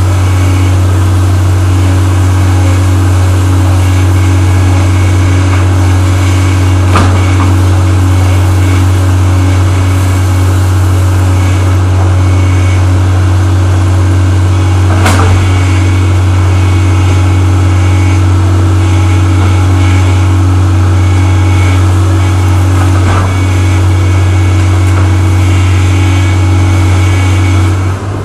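Caterpillar tracked excavator's diesel engine running steadily and loud while it demolishes a house, with three sharp cracks of the structure breaking spread through.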